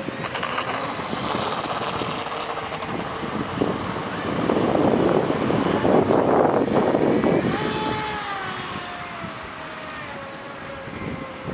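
Fei Lun FT011 RC racing boat's brushless motor whining at full throttle on a 4S (four-cell) battery as the boat speeds off, with a loud rush of water and spray at its peak about halfway through. The whine then falls steadily in pitch as the boat runs away across the water.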